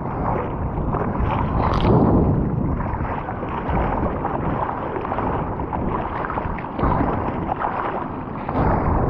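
Seawater sloshing and splashing around the nose of a surfboard being paddled out, heard from a camera at the waterline, with louder surges about two seconds in, near seven seconds and at the end.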